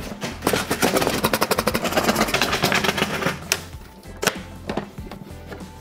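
A plywood carrying case being shaken hard, with the single 3D-printed plastic bin inside it rattling fast for about three seconds, then a couple of single knocks. This is a shake test of whether the bin stays locked in its grid frame. Background music plays underneath.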